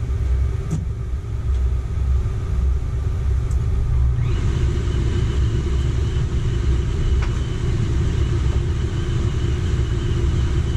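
Coleman Mach rooftop RV air conditioner running, a steady low rumble. About four seconds in a rush of air and a steady high whine join and hold, as the compressor comes on.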